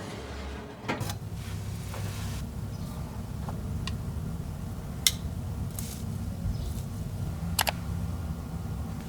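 A few sharp clicks and taps, spaced a few seconds apart, over a steady low hum.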